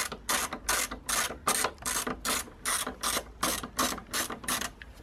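Ratchet driver with a T25 Torx bit undoing a screw, the ratchet clicking in quick back-and-forth strokes about three a second; the strokes stop shortly before the end.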